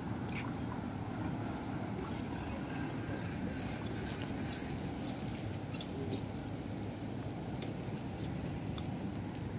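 Outdoor street ambience: a steady low rumble of traffic, with faint scattered clicks over it.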